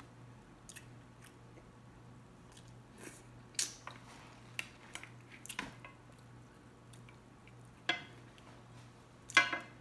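Close-up eating sounds: chewing on a mouthful of roasted fish and vegetables, with scattered short wet smacks and clicks, the loudest near the end.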